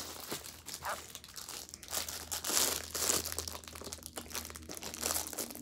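Clear plastic packaging bag crinkling and rustling as it is handled and cut open with scissors to free a fidget toy, loudest about halfway through.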